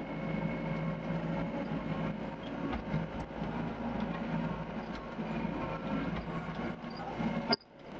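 Doosan DX55 excavator's diesel engine running under load with its hydraulics working, a steady pulsing hum. Near the end a sharp click, then the sound cuts out abruptly.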